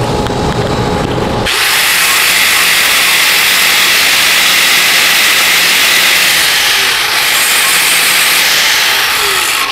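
DeWalt angle grinder grinding down high spots and weld spatter ("buckshot") on a 6010 hot-pass bead on steel plate. The disc bites into the metal about a second and a half in and then grinds steadily and loudly.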